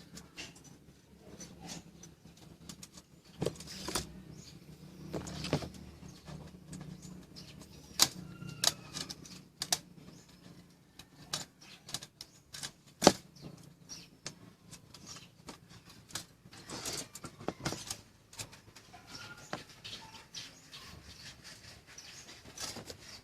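Irregular clicks and knocks of small hard objects being handled, with a sharper knock about 13 seconds in, over a faint low hum. Birds chirp faintly toward the end.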